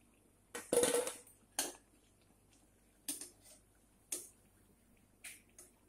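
Metal slotted spoon clinking and scraping against a metal kadhai and plate as fried vadas are lifted out of the oil: a string of separate short knocks, the loudest about a second in.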